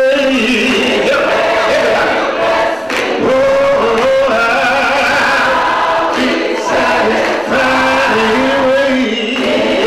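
Gospel choir of men and women singing a slow song in harmony, with long held notes.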